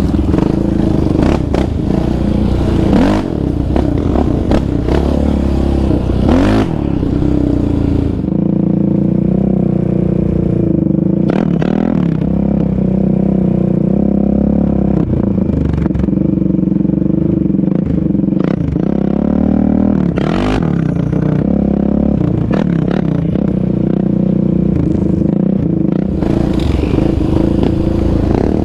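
Yamaha Raptor 700R sport quads, with their single-cylinder four-stroke engines, revving up and down with the throttle while riding a trail. At the start and again near the end the engine is heard from on board along with rattle and clatter from the machine over rough ground; from about eight seconds in the engine sound is smoother, with the pitch rising and falling as the quads accelerate and ease off.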